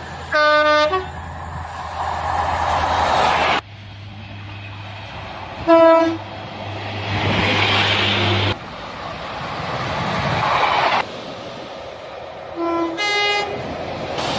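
Train horn sounding three short blasts a few seconds apart, over the steady rumble of a train running. The background changes abruptly between blasts, as if separate recordings were joined.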